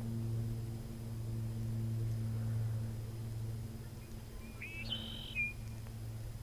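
A steady low hum with a few overtones runs throughout. A bird gives one short call about five seconds in.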